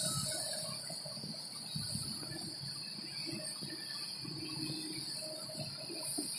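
Insects shrilling steadily in high, unbroken tones, over a faint, uneven low rumble of heavy machinery.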